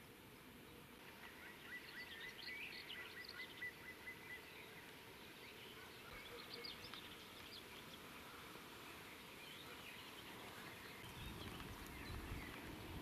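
Faint songbirds calling and chirping in quiet open countryside, including a quick run of short, evenly pitched notes early on. A low rumble builds near the end.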